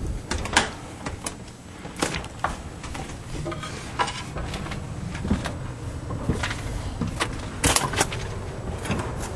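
Footsteps knocking on a steep pull-down staircase and the clunk of a roof hatch being pushed open: a run of irregular sharp knocks over a low rumble, with two loud knocks close together near the end.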